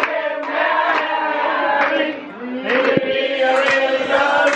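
A group of people singing together, holding long notes, with some hand claps.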